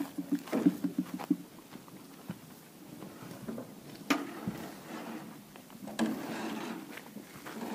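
Cattle feeding at a concrete trough: a quick run of knocks and clatters in the first second and a half, then single sharp clicks about four and six seconds in.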